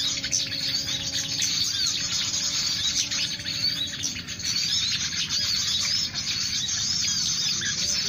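Small birds chirping and calling from the trees, many quick rising-and-falling chirps overlapping without pause. A steady low hum runs underneath and stops about halfway through.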